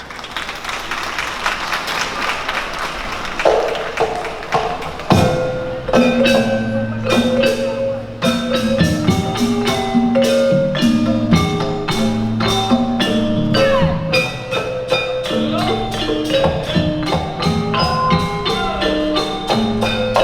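Sundanese gamelan degung ensemble playing a dance piece. About five seconds in a loud stroke sets it going. Tuned bronze metallophones and gongs then play a rhythmic, ringing melody over a low held tone.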